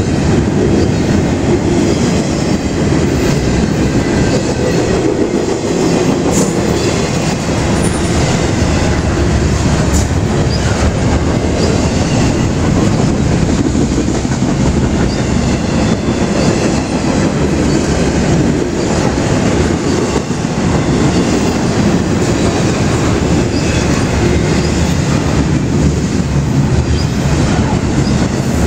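Double-stack intermodal container train of well cars passing close by: steel wheels running on the rails in a steady, loud rumble, with a faint high squeal wavering over it.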